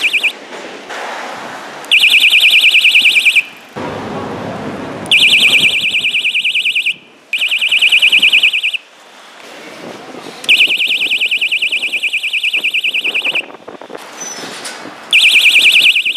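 SD-603 electronic bicycle horn sounding in a series of separate blasts, a rapidly warbling high-pitched electronic tone. Five blasts of one and a half to three seconds each, with short gaps between, as the horn button is pressed and released.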